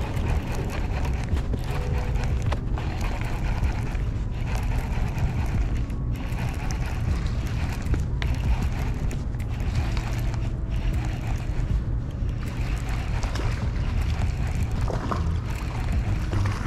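Steady low rumble of road traffic on the bridge overhead, mixed with wind buffeting the microphone.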